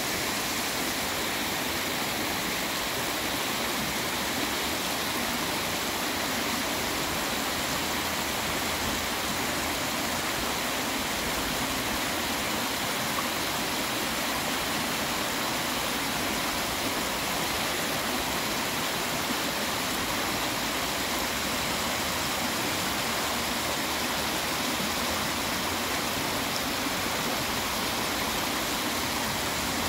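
Shallow stream rushing and splashing over rocks in a riffle: a steady, even rush of water.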